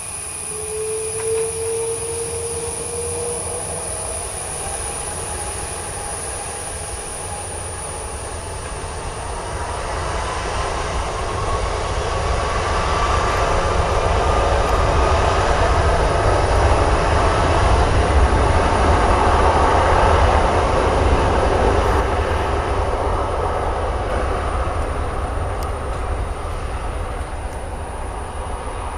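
Airbus A330-200's twin jet engines running as the airliner rolls along the runway: a heavy roar with a whine that rises in pitch. It grows louder as the aircraft passes and eases off near the end as it moves away.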